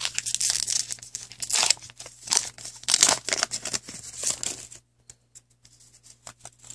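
Wrapper of a trading-card pack being torn open and crumpled, a dense run of rustling for about five seconds. It then drops to a few faint clicks and taps as the cards are handled.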